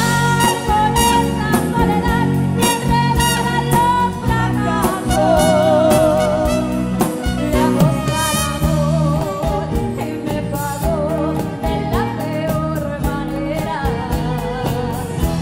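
A woman singing live with a band of drums, acoustic guitar and keyboard; her held notes waver with vibrato.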